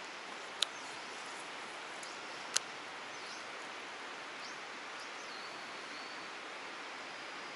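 Steady rush of a shallow stream flowing through a rock channel. Two sharp clicks sound about half a second and two and a half seconds in, and a few faint high chirps come through the middle.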